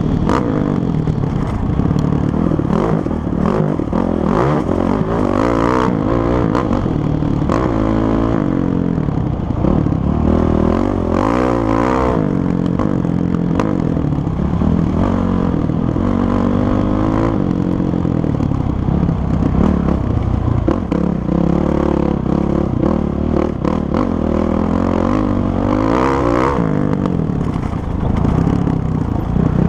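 Kawasaki KLX450R dirt bike's single-cylinder four-stroke engine being ridden, its pitch rising and falling again and again as the throttle opens and closes, with clattering over the bumps.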